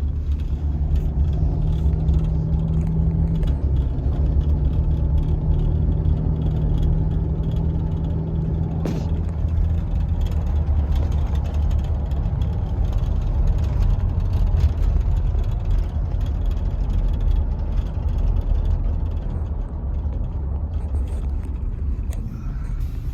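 Car cabin noise from the back seat while driving slowly: steady road and drivetrain rumble with a hum through the first nine seconds or so, faint intermittent ticking and rattling, and one sharp click about nine seconds in. The rattle sounds as if it is inside the back seat rather than under the vehicle.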